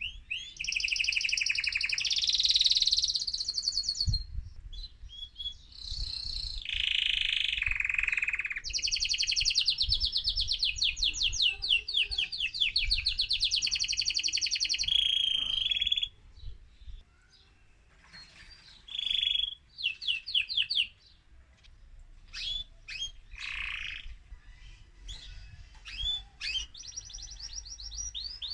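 Male mosaic canary singing excitedly: long, fast trills and rolled phrases, then a short quieter gap about halfway, followed by shorter bursts of song and another trill near the end.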